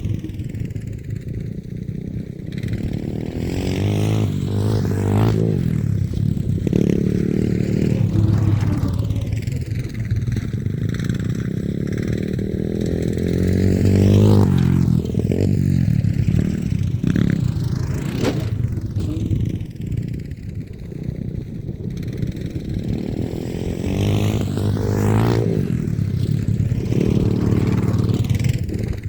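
Small off-road vehicle engine revving up and dropping back again and again, swelling louder and fading several times as it rides around.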